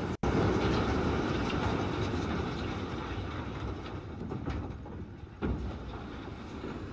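A load of large rocks sliding out of a tipper truck's raised tray and tumbling onto the ground: a heavy, continuous rumble and clatter that slowly eases off, with one sharp knock about five and a half seconds in.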